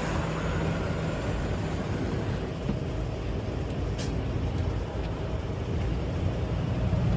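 Semi truck driving at highway speed, heard from inside the cab: steady engine and road noise, with a single faint click about four seconds in.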